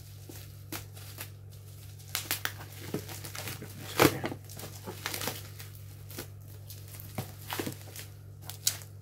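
Plastic bubble wrap crinkling and crackling in irregular bursts as it is handled and pulled off a boxed action camera, the loudest crackle about four seconds in. A steady low hum runs underneath.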